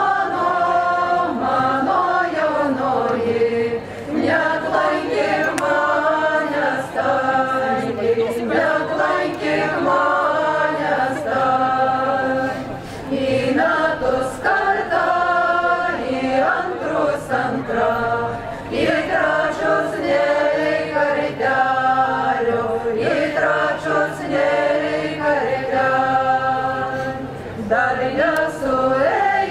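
A folk ensemble singing a folk song together, in phrases broken by short pauses for breath.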